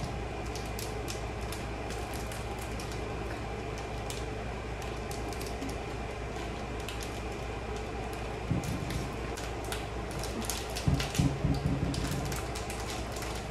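Light, scattered clicks and crinkles of a small plastic candy packet being handled at a table, over a steady low room hum. A few short, louder low sounds come about two-thirds of the way in.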